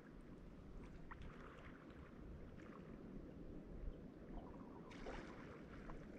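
Faint outdoor ambience: a low wind rumble on the microphone and soft lapping of shallow seawater, with a brief hiss about five seconds in.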